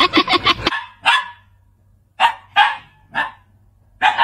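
A quick run of short pitched cries cuts off under a second in. Then a dog barks five times in sharp single barks, about a second apart, two of them close together.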